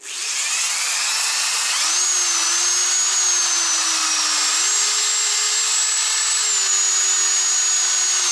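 Electric drill spinning a motorcycle pushrod in its chuck while sandpaper is pressed against it to clean it up: the motor starts at once, rises to speed over about two seconds, then runs steadily with a high whine over a rubbing hiss, its pitch stepping up briefly around the middle.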